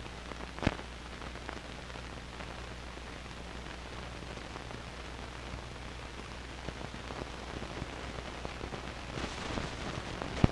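Run-out noise of a 16mm film print's optical soundtrack: steady hiss and low hum with faint scattered crackle. A sharp pop comes about a second in, and another comes at the very end.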